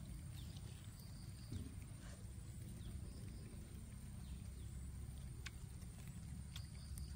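A person eating stuffed bell pepper: soft chewing and mouth smacks, with scattered short clicks over a steady low background rumble.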